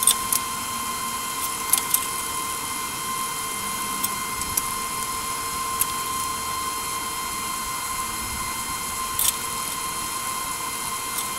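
A few light clicks and taps of a metal square and marker being set on a steel flat bar as a cut line is marked, over a steady hiss with a thin steady whine.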